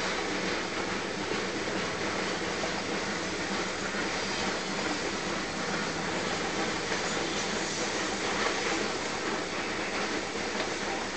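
A long loaded freight train's hopper and tank cars rolling past on the rails, giving a steady wheel noise that does not change much.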